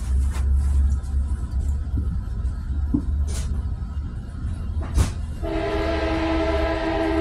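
Low steady rumble inside a Sounder commuter train car rolling into a station, with a couple of sharp knocks. About five seconds in a train horn starts, a long steady chord that is still sounding at the end.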